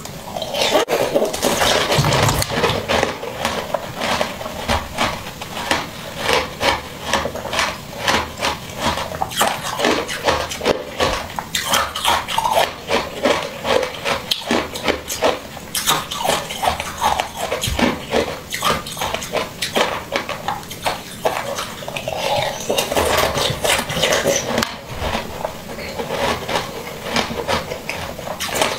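Close-miked mouth sounds of a person biting, sucking and chewing soft jelly: a fast, continuous run of wet smacks, clicks and squelches.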